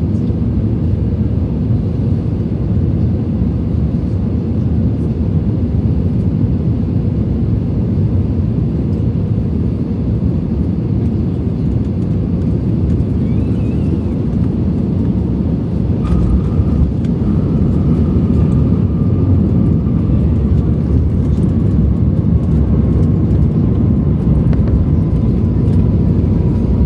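Airbus A321 cabin noise: a steady loud rumble of the jet engines and airflow. About sixteen seconds in it gets louder with a sharp knock, and an engine whine comes in that slowly falls in pitch.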